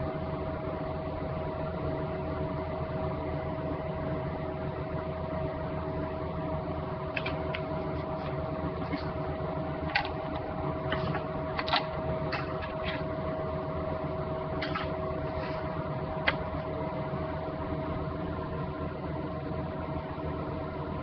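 Steady mechanical hum with a constant whine, like a running fan or motor, with a few light clicks and taps between about seven and sixteen seconds in.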